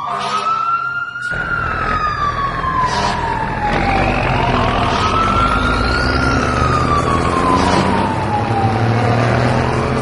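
Wailing siren: a tone rising quickly, then falling slowly, repeating about every four and a half seconds, over a steady low hum.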